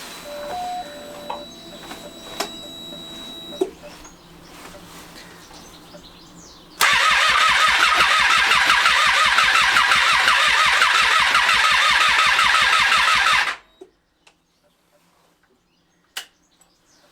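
Triumph Street Triple 675R's 675cc three-cylinder engine being cranked over on the starter motor for about seven seconds, a fast even churning that never catches and cuts off suddenly: the bike is turning over but not firing. Before it, a few seconds of faint tones and clicks as the ignition is switched on.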